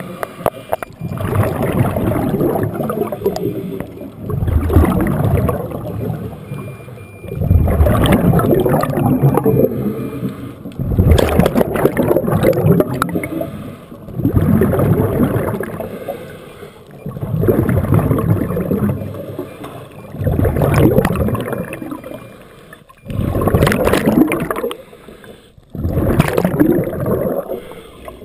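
Underwater bubbling in regular surges about every three seconds, typical of a scuba diver's exhaled breath from the regulator rushing past the camera.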